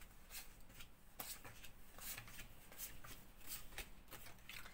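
Tarot cards being shuffled and laid out by hand on a cloth-covered table: a faint, irregular run of short flicks and slides.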